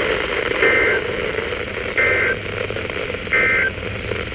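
Three short bursts of two-tone EAS SAME digital data, each about a third of a second and about 1.3 s apart, over radio static and hum. Bursts this short, coming in threes right after a warning is read, are the end-of-message code that closes an alert.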